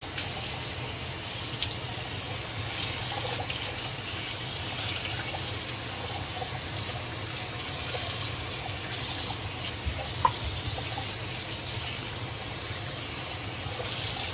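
Kitchen faucet running a steady stream onto a whole raw octopus in a plastic colander in a stainless steel sink, the water splashing as hands rub and rinse it.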